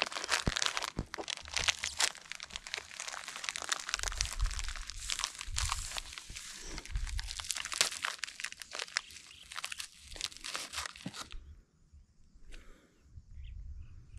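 Dense, irregular crinkling and crunching, like material being crumpled or handled, that stops suddenly about eleven seconds in.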